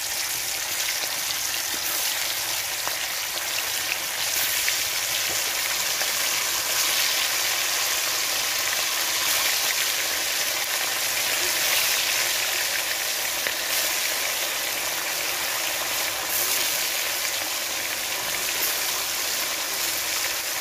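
Pieces of red snapper frying in hot oil in an iron kadai: a steady, loud sizzle with scattered small crackles.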